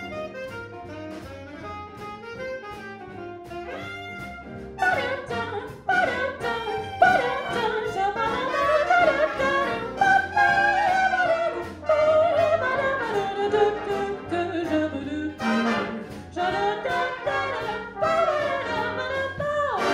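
Big band playing an instrumental break in swing style, with saxophones, trombones and trumpets. It is softer for about the first five seconds, then the band plays louder.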